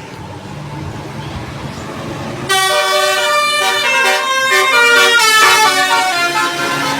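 A vehicle engine runs with a low hum, then about two and a half seconds in a tour bus's 'telolet basuri' musical air horn comes in loud, playing a tune of changing notes.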